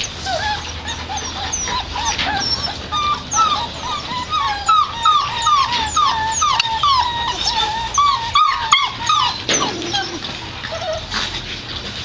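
American Pit Bull Terrier puppies whimpering, a quick run of short, high cries that each fall in pitch, thinning out near the end.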